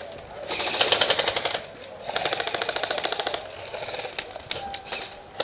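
Airsoft electric rifles firing on full auto: two fast, rattling bursts, each lasting about a second, the second starting about two seconds in. A few single shots follow near the end.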